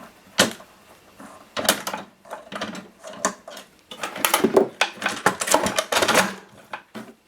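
Metal tool clicking and scraping against a metal chassis while captive Allen screws are being undone, in irregular clicks that come thick and fast for a couple of seconds and then stop shortly before the end.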